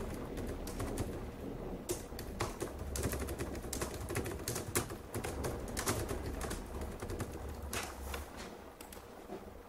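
Computer keyboard typing: bursts of irregular clicking keystrokes over a low steady hum.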